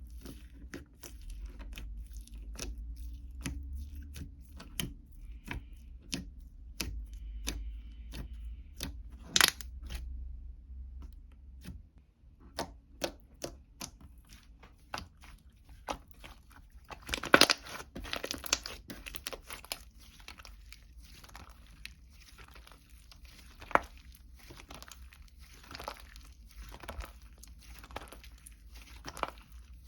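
Close-up handling noises: many sharp clicks and taps, then a dense burst of crinkling and tearing about seventeen seconds in, followed by irregular softer rustles and scrapes. A low hum sits under the first half.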